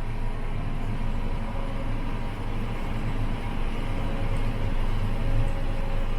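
Steady drone of a 9420R articulated four-wheel-drive tractor, heard from inside its cab while it pulls a grain cart across the field, with a faint steady whine over the low engine hum.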